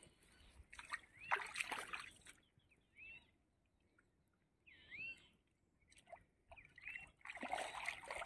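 Water splashing and dripping as a wet gill net is pulled out of a shallow pond by hand, in two bursts: one about a second in and another near the end.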